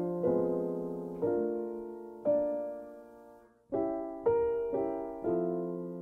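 Background piano music: slow chords struck about once a second, each one fading away. After a short pause a little past the middle, the chords come twice as often.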